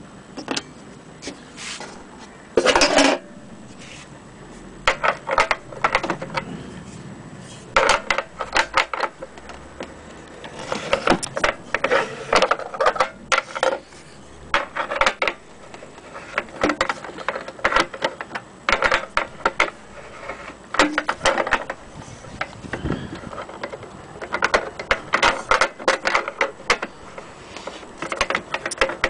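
Antique gramophone's chrome tone arm handled and moved, giving irregular bursts of metallic clicks and clatter, the loudest about three seconds in.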